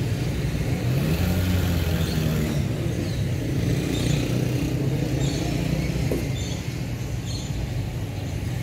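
A vehicle engine idling steadily, a low hum that wavers a little in pitch.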